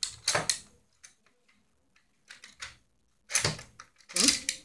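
Plastic clicks and clacks of a Nerf Strongarm toy blaster being handled as its rotating drum is worked for loading darts. A few quick clicks come at the start, then louder clacks in the last second and a half.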